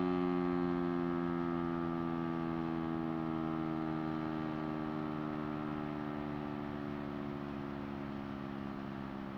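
Siren winding down: a low, many-overtoned tone slowly dropping in pitch and fading away.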